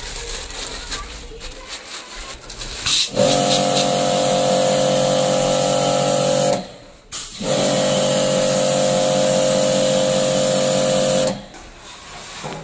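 Electric pressure-washer pump running with a steady whine, water hissing from the jet as it sprays a window AC's compressor and coils. It starts about three seconds in, cuts out briefly around the middle, runs again, and stops near the end.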